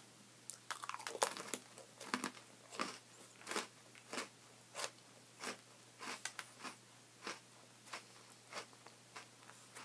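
Faint, regular crunching of an Oreo sandwich cookie being chewed, about one crunch every two-thirds of a second.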